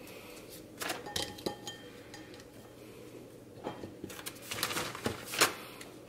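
Dry pine cones being put into an empty glass candle jar: scattered light knocks and scrapes of cone against glass, a few about a second in and a louder cluster a little past the middle.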